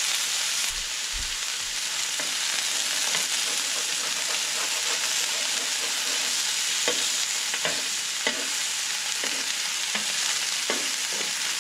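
Halibut fillets sizzling steadily in olive oil on a hot stovetop griddle, with a few light scrapes of a metal spatula shifting them so they don't stick.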